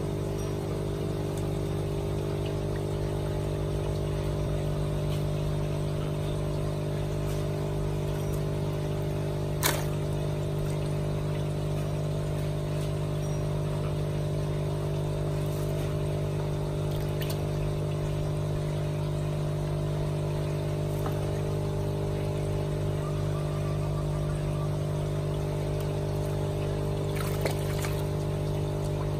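A steady electric machine hum, like a running pump or blower, over trickling, pouring water. There is a sharp click about ten seconds in and a few small splashes and clicks near the end as hands stir the water.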